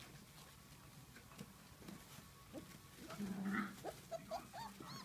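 Young puppies whimpering and yipping in short, high squeaks that come thick and fast over the last second or so. About three and a half seconds in there is one louder, lower cry.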